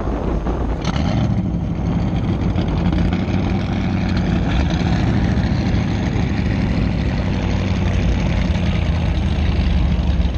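Yamaha personal watercraft's engine running steadily at idle while the craft moves slowly, a low, even hum.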